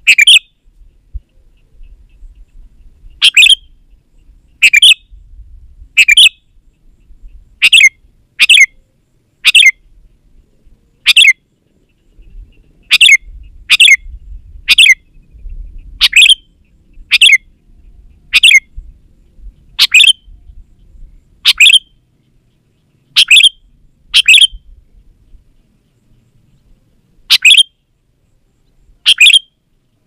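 Sooty-headed bulbul (kutilang) calling over and over in short, loud calls, singly or in quick pairs, about one every second or two.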